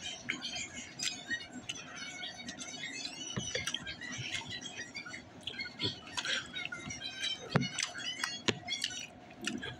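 Chewing and lip-smacking very close to the microphone while eating breaded chicken nuggets: a steady stream of wet, crackly mouth clicks and smacks, with a few louder smacks.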